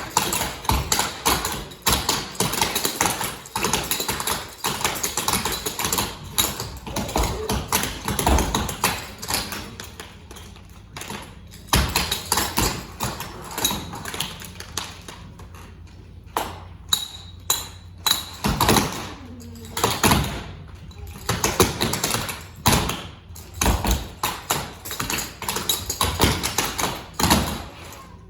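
Many taps and thumps from a group of young dancers' feet stamping and hands slapping and clapping in a chair dance routine. They come in dense runs, with a quieter stretch about halfway through.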